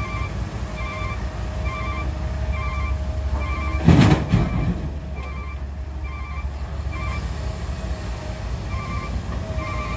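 Cat 312B excavator dumping a bucket of rocks and soil into a steel dump-truck bed about four seconds in: a loud crash that dies away within about half a second, over the steady low running of the diesel engines. A short high beep-like chirp repeats about every two-thirds of a second.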